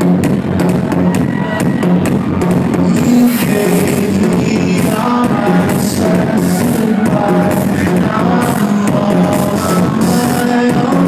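Loud electronic dance music with a steady beat and a synth melody.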